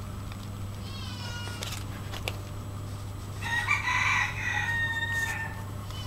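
Animal calls over a steady low hum: a short call about a second in, then a louder call of about two seconds from about three and a half seconds in that ends on a long drawn-out note.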